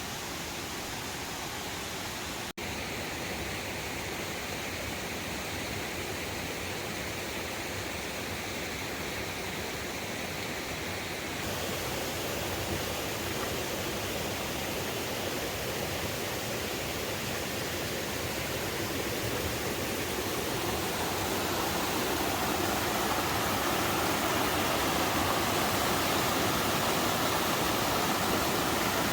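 Mountain waterfall rushing steadily, a continuous hiss of falling water that grows gradually louder over the second half. It drops out for an instant about two and a half seconds in.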